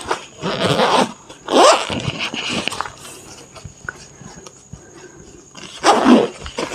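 A dog giving a few short barks and yelps: one about half a second in, a louder one with a rising pitch at about a second and a half, and another near the end.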